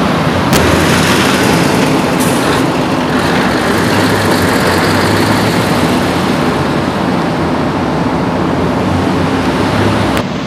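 Heavy tanker truck with trailer driving past, its diesel engine a steady low hum under loud road and air noise. A sharp click about half a second in and another just before the end.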